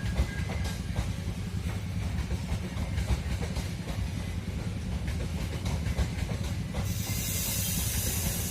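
Wagons of a long Babaranjang coal freight train rolling past, a low steady rumble with irregular wheel clicks over the rail joints. About seven seconds in a loud hiss joins the rumble.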